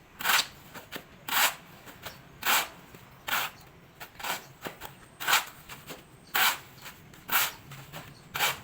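Shovel scraping through wet concrete mix in even strokes, about one a second, as the concrete is mixed by hand.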